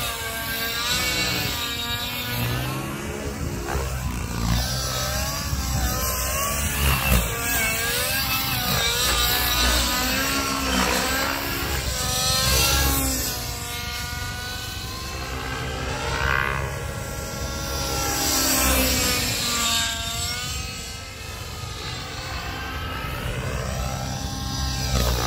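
Radio-controlled helicopter flying aerobatics, its rotor and motor whine rising and falling in pitch again and again as it swoops, flips and passes close.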